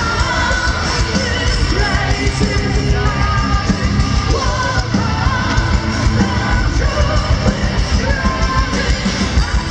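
Metal band playing live through a festival PA: distorted guitars, pounding drums and bass, with a woman singing and screaming over them.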